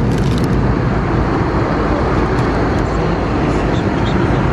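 Steady rushing cabin noise of an Airbus A320neo in flight: engine and airflow noise heard from inside the passenger cabin, with a few faint ticks over it.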